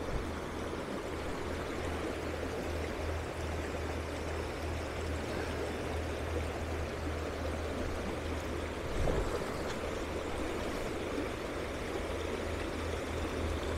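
Shallow mountain river rushing steadily over stones and boulders in a riffle, with a low rumble that comes and goes and a brief low thump about nine seconds in.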